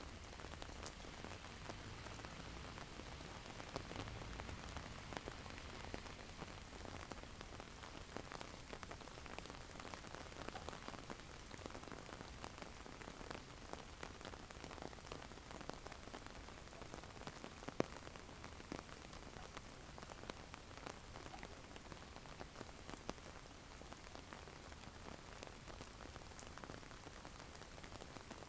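Rain falling on a block of snow: a faint steady hiss with many small drop ticks, and one louder tick about two-thirds of the way through.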